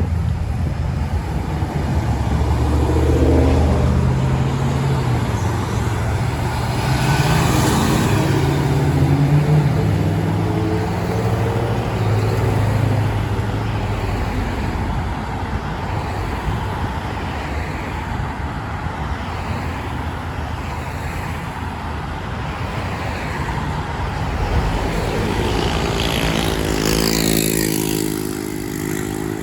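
Road traffic with a heavy diesel engine, plausibly the school bus's Cummins ISB 6.7L, running and changing pitch as it moves off and speeds up during the first dozen seconds. A vehicle passes close near the end.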